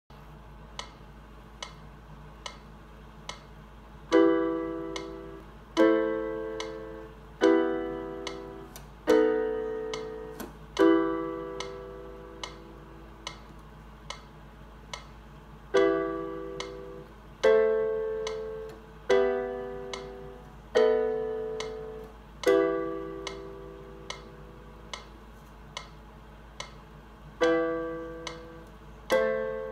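Casio electronic keyboard on its stereo grand piano voice playing an E minor chord progression: two-handed block chords, each struck and left to fade for about two beats. A steady metronome click sounds about every 0.8 s. The clicks play alone for the first four seconds, and the chords pause for a couple of seconds midway.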